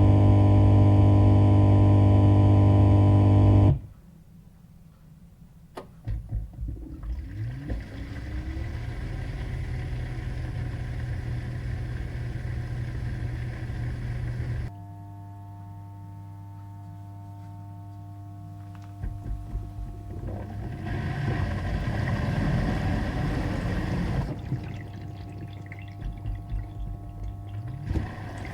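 A run of different household electric appliances, one after another. First a loud steady electric hum, which stops about four seconds in. Then a click and a motor spinning up with a rising whine and running steadily, a different steady hum, and noisier running machines near the end.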